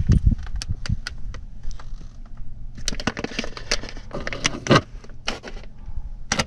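Clear plastic packaging bag crinkling and crackling as it is handled, a run of sharp clicks that grows denser in the middle.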